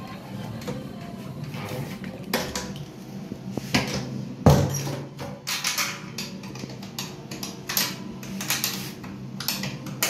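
Bar background: music playing under the clatter of dishes and cutlery, with a string of knocks and clicks, the loudest about four and a half seconds in.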